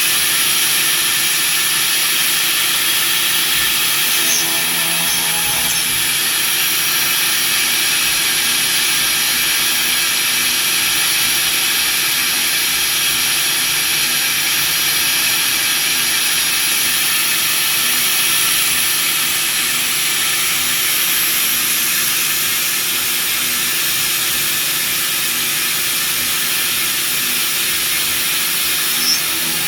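CNC machine spindle running steadily while cutting a mould: a constant loud hiss with a thin high whine, and a brief click or two about four seconds in and again near the end.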